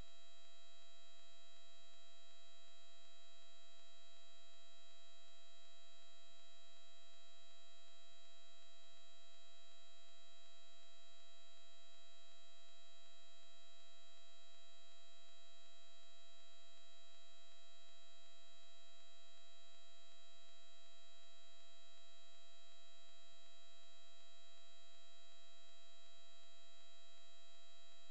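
Steady electrical hum with a thin high-pitched whine, an unchanging set of tones with no crash impact heard.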